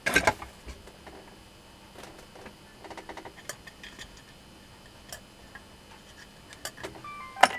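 Light, scattered clicks and taps of hands handling small parts and tools on a steel workbench, with a sharper knock right at the start and another near the end.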